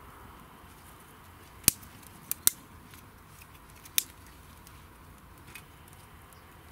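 Four sharp clicks: one a little under two seconds in, two close together half a second later, and a last one about four seconds in, over a faint steady background.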